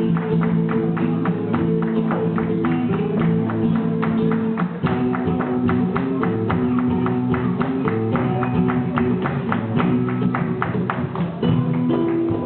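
Flamenco music with sharp, evenly spaced strokes, about four a second, over held low notes; the chords change about five seconds in and again near the end.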